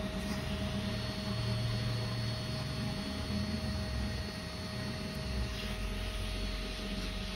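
Steady mechanical hum of running electric equipment, with a faint high whine above it.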